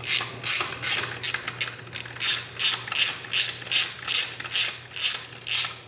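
Socket ratchet wrench clicking in quick, even back-and-forth strokes, about two and a half a second, as a bolt on a motorcycle engine cover is turned. The strokes stop just before the end.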